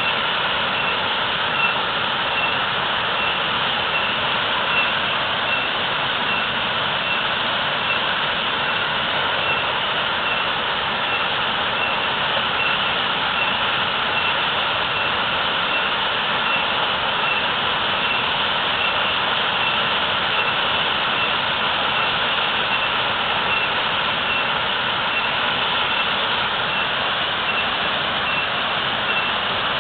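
Waterfall: a steady, strong rush of falling water, even throughout.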